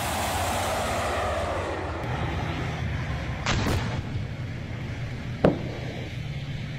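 Javelin anti-tank missile firing: a rushing noise from the missile in flight fades over the first two seconds. Two sharp bangs follow, about two seconds apart, over a steady low rumble.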